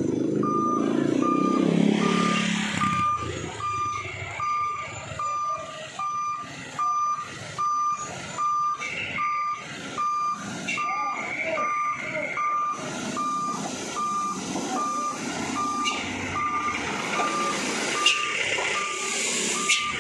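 A truck's electronic warning beeper repeating a short high beep about one and a half times a second, over the running engine of a light cargo truck creeping through a narrow tunnel. A motor scooter passes close by in the first couple of seconds.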